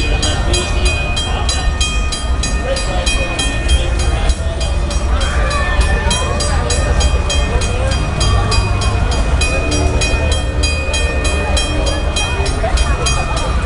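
Railroad crossing bell ringing rapidly and steadily, about four or five strikes a second, over a train's steady low rumble.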